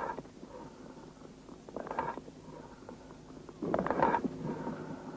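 Amphoric breathing heard through a stethoscope: two breaths, about two seconds apart, each a hollow, jar-like blowing sound. This is the breath sound of a lung cavity or abscess.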